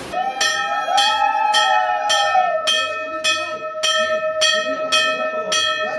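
Large hanging brass temple bell rung repeatedly by hand, about two and a half strikes a second, each strike ringing on into the next. A long held tone sounds beneath it.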